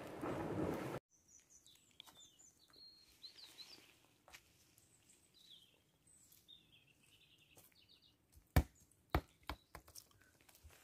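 Waves on a pebble shore with wind on the microphone, cut off suddenly about a second in; then small birds chirping faintly, followed near the end by several sharp thumps.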